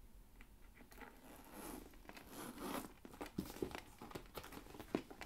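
Rustling and crinkling as a patent leather tote bag is handled and lifted, with a few light knocks in the second half.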